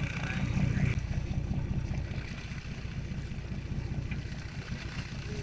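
Fishing boat under way on open water: a low, steady motor rumble mixed with wind buffeting the microphone.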